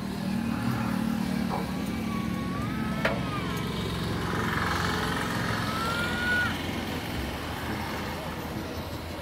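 A motor engine running steadily, with thin whistling tones gliding up and down over it in the middle and a single sharp click about three seconds in.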